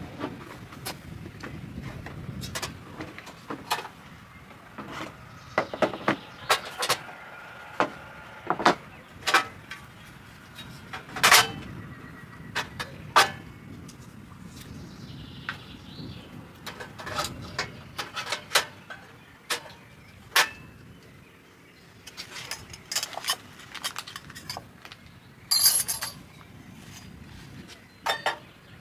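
A portable gas camping stove being unpacked and set up on a wooden table: a string of sharp clicks and knocks from its hard carrying case, the stove being set down and a small metal pot placed on the burner.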